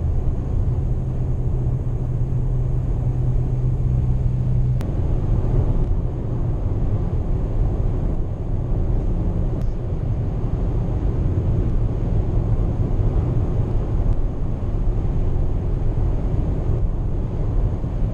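Cabin noise of a 2019 Toyota RAV4 220H hybrid driving at motorway speed: a steady low rumble of road and drivetrain noise, with a low hum that changes about five seconds in.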